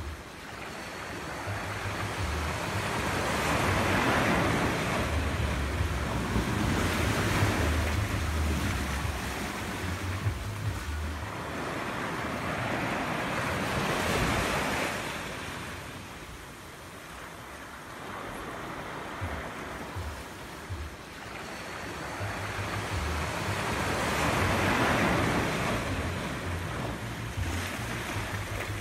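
Surf washing onto a beach, the hiss of each wave swelling and fading over several seconds, with wind rumbling on the microphone.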